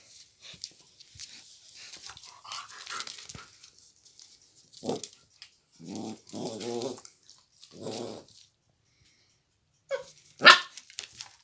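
A Scottish terrier and a German shepherd play-fighting: scuffling at first, then a short bark, growling in the middle, and one loud, sharp bark near the end.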